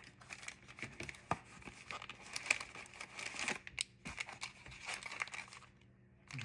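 Crackly crinkling and tearing of a cardboard trading-card box and its wrapped card packs being handled, dying away shortly before the end.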